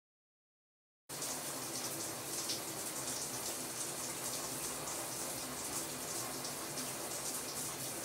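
Shower running: water spraying steadily from a showerhead, cutting in suddenly about a second in after silence.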